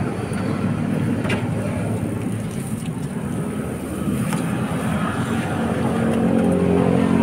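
Steady road traffic noise from vehicles passing. Near the end it gets louder as an engine comes closer.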